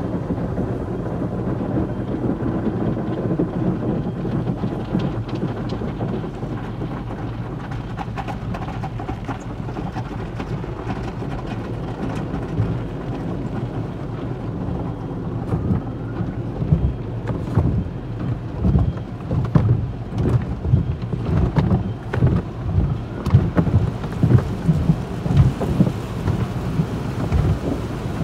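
Automatic car wash heard from inside a car's cabin: a steady rush of spray and foam on the body and windshield. About halfway through it turns into irregular heavy thumps and surges as water and the wash equipment pound the car.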